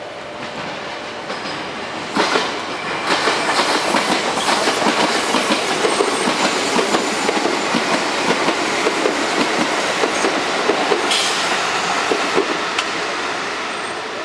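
A passing train: wheels clattering over the rail joints in a quick, uneven rhythm, starting abruptly about two seconds in and easing off near the end.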